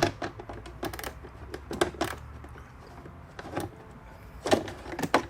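Irregular clicks and knocks of hand tools working on a bolt of a heater unit inside a car dashboard, about half a dozen over a few seconds.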